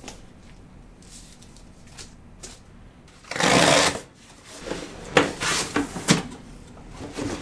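Cardboard packaging being handled: a loud scraping rustle about halfway through as the shipping carton is opened, then a few knocks and rubs as the boxed computer is slid up out of the carton.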